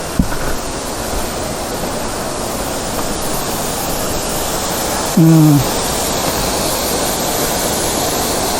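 Waterfall rushing steadily, a dense even wash of falling water that grows slightly louder. A short knock near the start and a brief falling voice sound about five seconds in.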